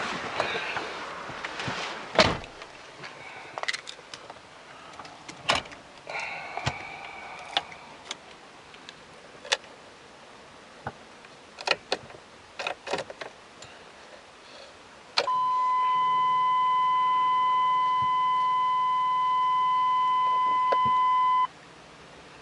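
Scattered clicks and knocks of handling or tools, then a loud, steady electronic beep for about six seconds that cuts off suddenly.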